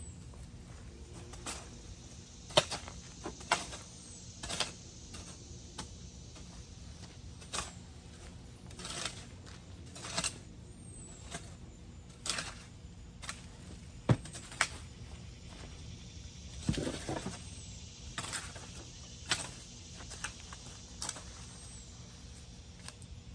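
Irregular knocks and scrapes, roughly one a second, from a garden hand tool being worked in compost.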